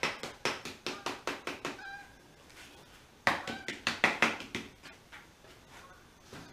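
Rapid light tapping, about five taps a second, as a felt-lined glass run channel is tapped and snapped into the groove of a bus window frame, in two bursts with a pause between. A couple of short high squeaks come in between the taps.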